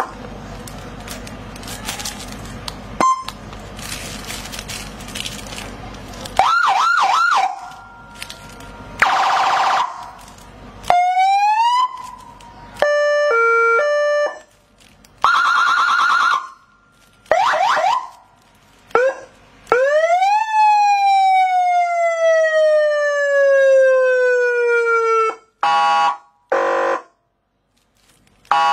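Wireless electronic car siren sounding through its nickel-plated metal horn speaker, switched from tone to tone by its remote: quick warbling yelps, a stepping two-tone hi-lo, a long wail that rises and then falls slowly, and short blasts, with gaps between them. The first six seconds hold only low noise and a single click before the first tone.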